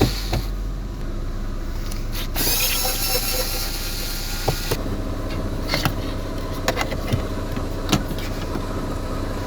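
Steady mechanical hum from inside a car with its power on, with a few light clicks and taps. A hiss rises between about two and a half and five seconds in.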